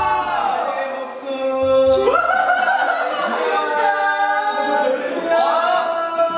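Men's voices singing long, drawn-out gliding notes without instruments.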